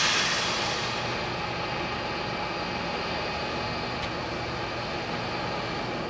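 Steam hissing from the cylinder drain cocks of NSW 38 class steam locomotive 3801: a loud hiss that starts suddenly, then settles into a steady rush.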